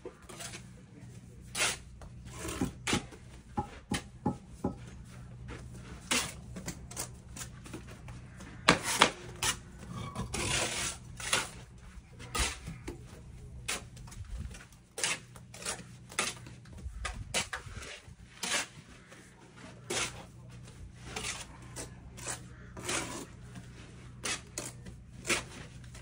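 Steel bricklaying trowels scraping up mortar and tapping concrete blocks down into their mortar bed, with irregular sharp clinks and scrapes.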